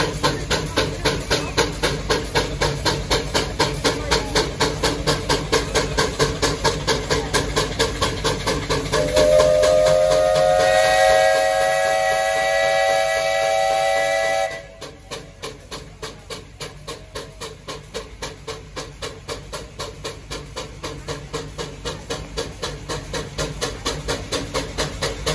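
A pull tractor's engine runs hard under full load, its sound pulsing about four times a second. About nine seconds in, a loud high whistling whine joins it, rising slightly, and cuts off suddenly about five seconds later, after which the engine sounds quieter.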